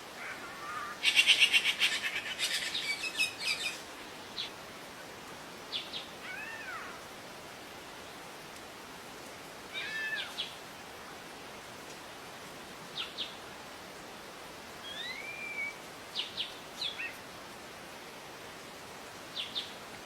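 Wild birds calling: a loud burst of rapid chirps about a second in, then scattered single calls and short whistles that rise and fall, over a steady faint hiss.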